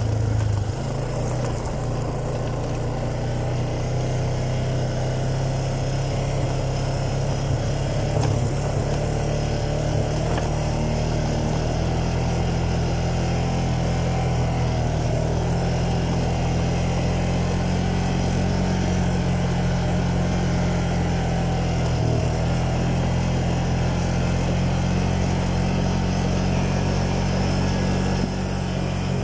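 ATV (quad bike) engine running steadily while being ridden along a dirt trail, with small rises and dips in pitch as the throttle changes.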